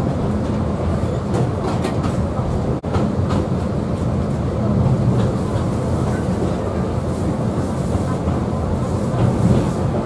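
Alishan Forest Railway narrow-gauge (762 mm) train running along the line, heard on board: a steady rumble of wheels and running gear on the rails.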